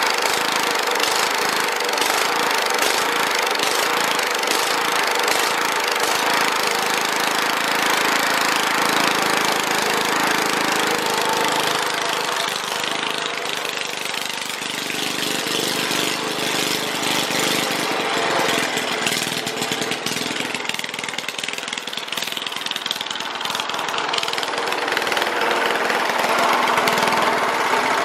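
Walk-behind lawn mower's small single-cylinder engine running straight-piped, with its muffler removed, loud and steady.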